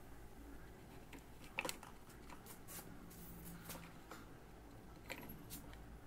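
Hands fitting plastic tubing onto a small water pump and cooling block: faint scattered clicks and rubbing, with a sharper click about a second and a half in and another near the end.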